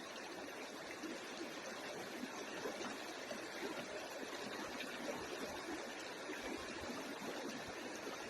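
Steady, even rush of running water, like a flowing stream.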